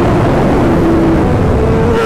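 Sport bike engine running at highway speed under heavy wind rush on the microphone, its tone stepping up slightly in pitch about one and a half seconds in.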